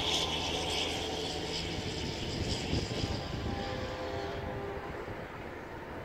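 A distant engine drone with a hiss over it, loudest at the start and fading away over a few seconds.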